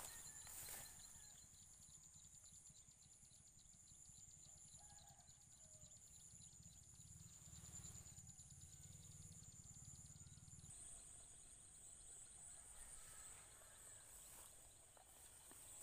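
Faint chorus of night insects: a steady, high-pitched trilling with a fast pulsing trill beneath it.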